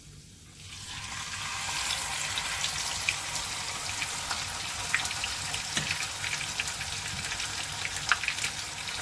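Whole seasoned parrot fish going into hot oil: the oil starts sizzling about a second in, then keeps up a steady frying sizzle with scattered crackles and pops.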